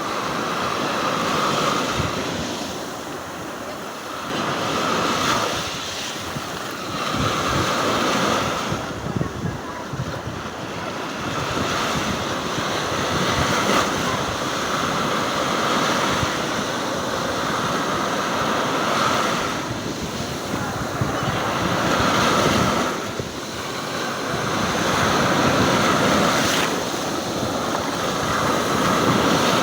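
Stormy sea: waves breaking and washing up in a continuous surf that swells and eases every few seconds, with wind buffeting the microphone.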